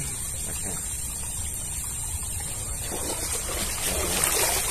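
Shallow muddy water splashing and sloshing as a man wades and gropes for fish by hand, growing louder in the last second or two.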